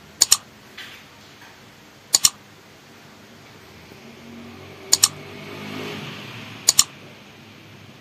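Four computer-mouse clicks, each a quick double click, about two seconds apart: the click sound effect of a 'like and subscribe' button animation.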